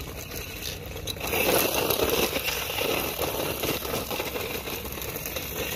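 A twin brushed-motor 4x4 RC truck (Laegendary Legend) driving over loose dirt and gravel. Its tyres crunch and scrape on the stones, getting louder about a second in, while the motors run very quietly underneath.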